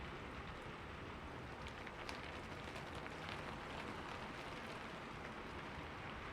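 Steady rainfall with a fine patter of individual raindrops striking a surface.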